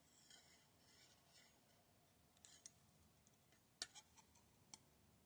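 Near silence: room tone with a few faint, sharp clicks, the loudest just before four seconds in.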